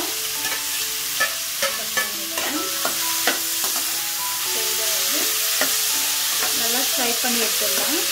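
Chopped onions sizzling as they fry in hot oil in a kadai, stirred with a spatula that clicks and scrapes against the pan. Several sharp clicks come in the first few seconds over the steady sizzle.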